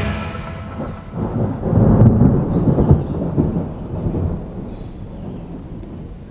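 A long roll of thunder with rain, the rumble swelling to its loudest about two to three seconds in and then slowly dying away.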